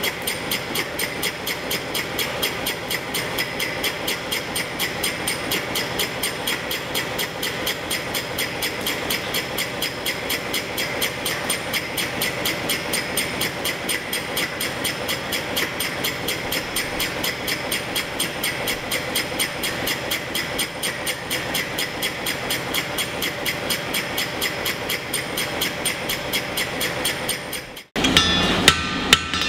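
A steady, fast, even rhythm of metallic strikes with a ringing tone, cutting off suddenly near the end. It gives way to a few loud blacksmith's hammer blows on an anvil as red-hot iron is worked.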